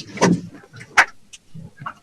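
Hurricane-force wind gusts battering a truck, heard as irregular bursts of noise that cut in and out, with a sharp crack about a second in.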